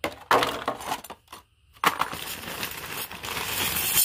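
Plastic bag of electric-fence insulators crinkling as it is picked up and handled: a few short crackles, then steady crinkling from about two seconds in.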